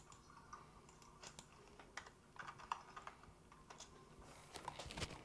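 Faint, irregular computer keyboard key presses and clicks, a little busier near the end.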